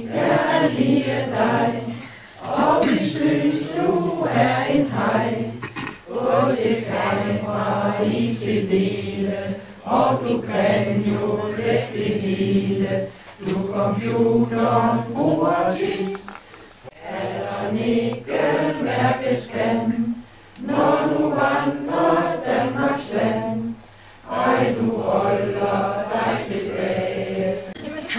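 A roomful of dinner guests singing a song together from printed song sheets. The voices come in phrases a few seconds long, with brief breaks between lines.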